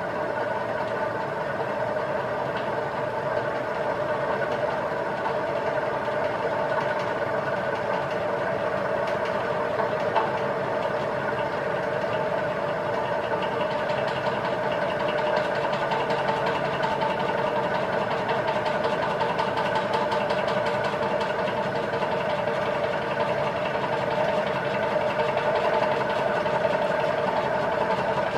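36-inch Banvil Envirofan Gold Line industrial ceiling fan (1986, made by Palco) running steadily, its motor giving an even hum with several steady tones.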